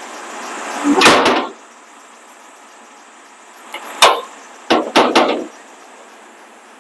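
A series of hard knocks or bangs: a loud rattling cluster about a second in, then a sharp single knock about four seconds in and three quick ones just after.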